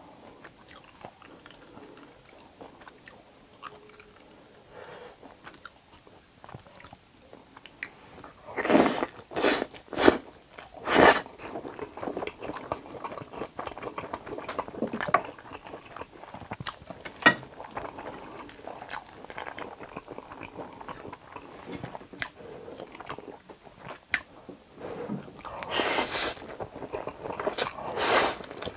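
Close-miked eating of jjapagetti noodles and fried egg: soft, wet chewing through most of it, four loud short mouth sounds between about nine and eleven seconds in, and noodles being slurped in near the end.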